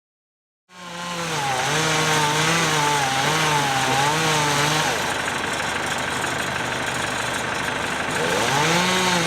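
STIHL two-stroke chainsaw running at high revs, its engine note wavering up and down. For about three seconds in the middle the note drops and turns rougher, then it climbs back up near the end.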